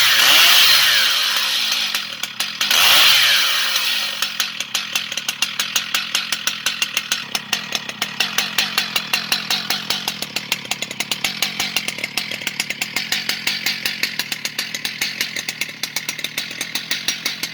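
Stihl MS 881 chainsaw's large two-stroke engine revved high, easing off about two seconds in, blipped once more, then dropping to idle with a regular loping beat of about four pulses a second.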